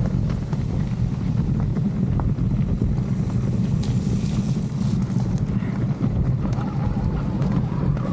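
Mountain bike riding over rough ground, with wind buffeting the microphone as a steady low rumble and the bike giving scattered clicks and knocks.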